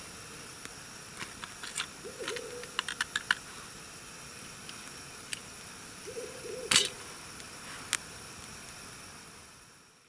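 Wood campfire crackling: scattered sharp pops, a quick run of them about three seconds in and the loudest near seven seconds, over a steady faint hiss. Two faint short low sounds come at about two and six seconds in, and everything fades out at the end.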